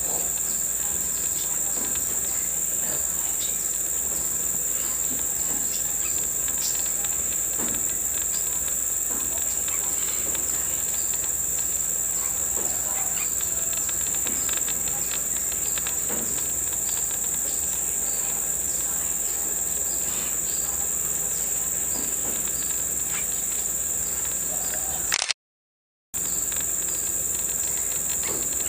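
Steady, high-pitched chorus of insects, shrilling without a break. It cuts out for under a second about 25 seconds in, then resumes unchanged.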